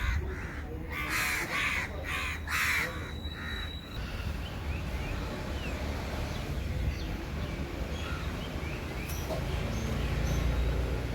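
A crow cawing about five times in quick succession, then stopping. Faint chirps of small birds follow over a low steady rumble.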